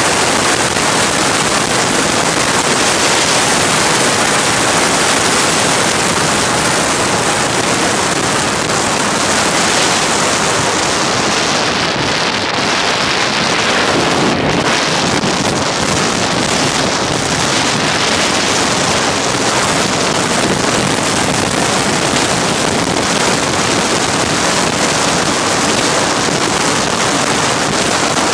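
Loud, steady wind noise buffeting the microphone of a phone carried on a moving motorcycle, briefly duller in tone about halfway through.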